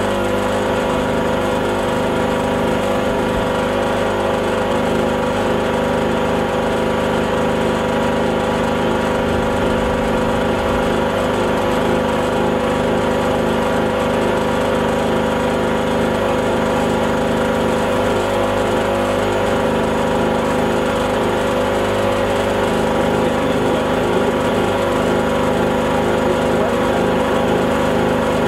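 Small two-stroke portable generator running steadily under the load of a festoon of lit compact fluorescent lamps.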